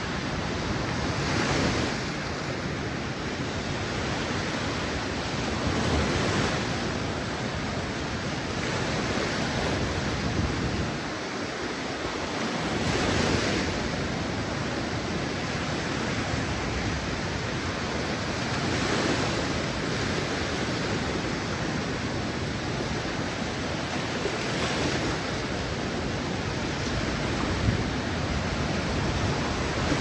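Small waves breaking and washing up on a sandy beach: a continuous surf wash that swells louder as each wave breaks, about every five to six seconds.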